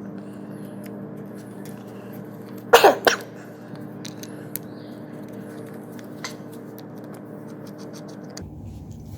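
A person coughs twice in quick succession about three seconds in, over a steady low hum and a few light clicks.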